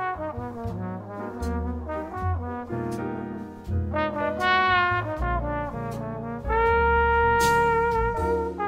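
Jazz background music led by a trombone playing a slow melodic line, which holds one long note near the end.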